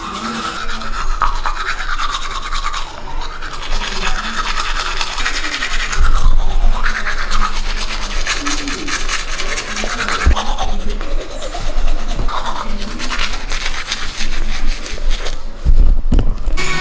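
Manual toothbrush scrubbing teeth close up, a rapid back-and-forth scratching of bristles through a mouthful of toothpaste foam, with a few dull thumps along the way.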